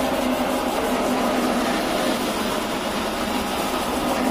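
Passenger ferry's engine running steadily, an even hum that holds the same pitch throughout.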